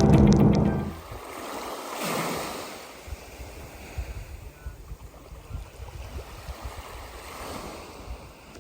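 Music ends about a second in, giving way to waves washing onto a beach, swelling twice, with wind buffeting the microphone.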